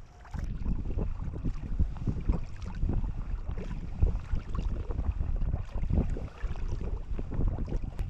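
Wind buffeting the microphone over water sloshing around a sea kayak under way, in uneven, gusty surges.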